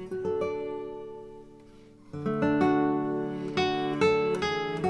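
Background music: an acoustic guitar playing plucked and strummed notes, letting them ring and fade before a new, louder phrase comes in about two seconds in.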